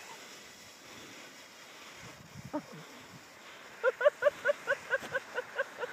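A person laughing: a quick run of about a dozen short, even "ha" pulses, starting a little before two seconds from the end and fading slightly toward the close, over a faint steady hiss.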